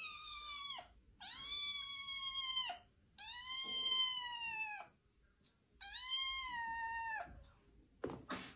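A black-and-white kitten meowing four times, high-pitched drawn-out calls each about a second long, then a couple of short scuffs near the end as it jumps at a pair of slippers.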